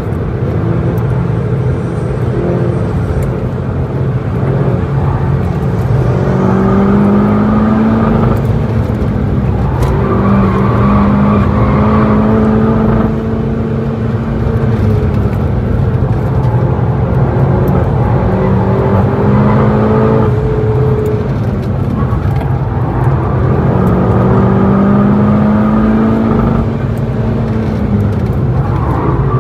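Golf GTI Clubsport S's turbocharged four-cylinder heard from inside the cabin while lapping at speed. Its pitch climbs under acceleration and breaks off several times as the driver lifts or changes gear.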